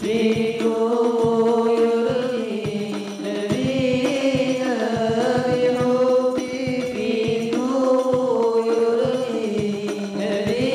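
Young male voices singing an Arabic qasidah in a slow, ornamented melody, accompanied by a steady beat of hand-struck frame drums.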